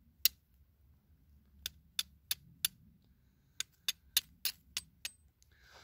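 Steel striker struck against a piece of jasper, flint-and-steel style: about eleven sharp clicks in three quick bursts, roughly three strikes a second, throwing sparks onto char cloth to catch an ember.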